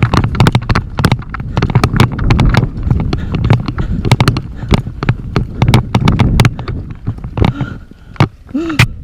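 A person's running footsteps, heavy and uneven, with the worn camera jolting at each stride. The footfalls die away about seven seconds in and give way to hard, gasping breaths.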